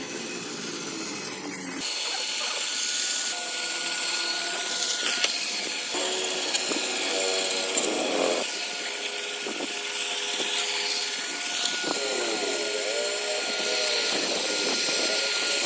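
Electric power tool working wood: a steady high whine over a hiss of cutting or sanding, with the pitch of the motor shifting as it bears on the work.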